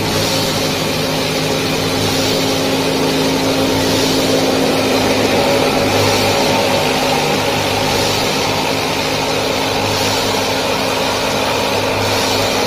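Small motor of a DIY miniature farm machine running steadily at a constant pitch.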